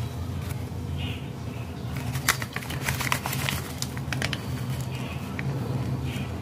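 A plastic bag crinkling and a metal spoon scraping and tapping as reetha powder is spooned from the bag into a bowl, with a cluster of sharp clicks and rustles in the middle. A steady low hum runs underneath.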